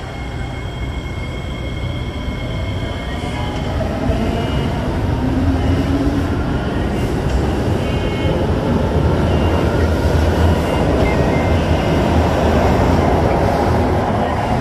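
SMRT six-car MRT train running along the track beside the platform, its rumble of wheels on rail growing louder as the cars draw near, with a high whine over it.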